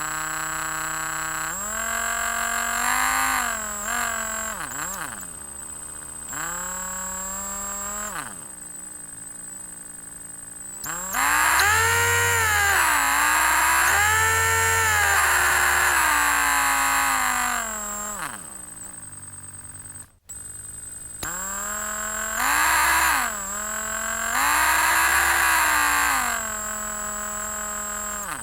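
An electric drill motor whining through several runs, its pitch rising and falling as it is sped up and slowed, winding down between runs. The longest and loudest run is in the middle, with a steady high whistle underneath throughout.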